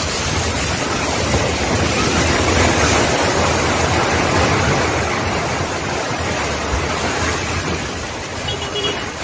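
Roar of a multi-storey concrete apartment building collapsing in an earthquake: a loud, dense rumble of falling floors and debris. It sets in suddenly and eases a little near the end.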